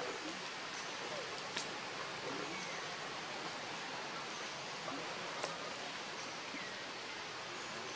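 Steady outdoor background hiss, with a couple of faint sharp clicks and a few faint short chirps.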